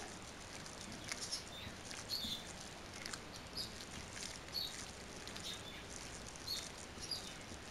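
Hands kneading raw minced beef with ground spices and onion paste on a glass plate: faint, irregular short sticky squishes, about three a second.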